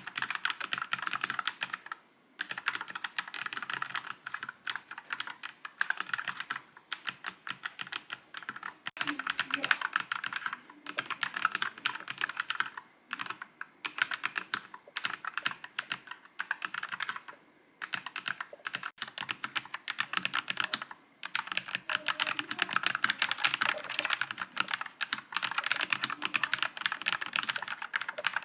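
Fast typing on a NuPhy Air96 low-profile mechanical keyboard: dense runs of key clicks broken by several short pauses.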